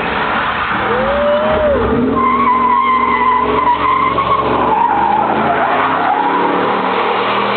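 A Camaro doing a burnout, its engine running hard while the spinning rear tyres squeal and smoke. The squeal wavers up and down in pitch, with a short whine about a second in and a longer, stronger one from about two seconds in.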